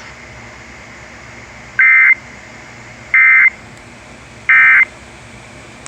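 Emergency Alert System end-of-message data bursts on FM radio: three short, loud bursts of warbling two-tone data about a second and a half apart, marking the end of the severe thunderstorm warning. Steady radio hiss between the bursts.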